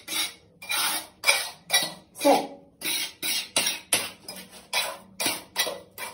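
A trowel scraping and smoothing wet cement mortar around the base of a toilet on a tiled floor, in quick repeated strokes, a little over two a second.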